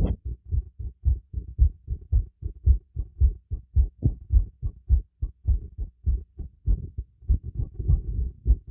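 Human heartbeat heard through a stethoscope pressed to the chest: a steady run of low lub-dub thumps at about two beats a second, a heart rate raised by exercise.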